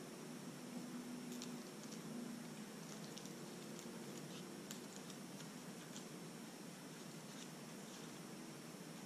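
Faint, irregular little ticks and scratches of a small pointed tool picking and lifting cut pieces of adhesive vinyl on a paper-backed sheet, over steady room hiss.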